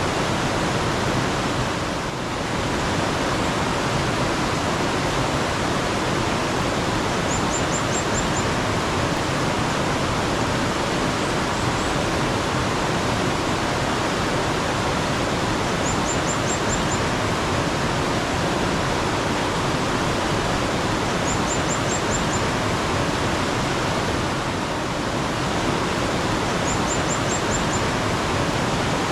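Steady rushing water of a mountain stream. Over it, a small bird four times gives a quick run of about five thin, very high notes.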